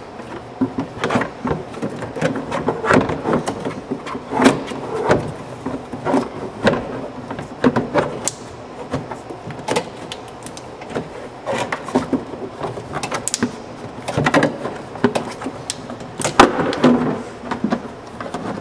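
A clutch cover being worked and pushed into place by hand on the CVT housing: irregular clunks, clicks and scrapes, some in quick clusters.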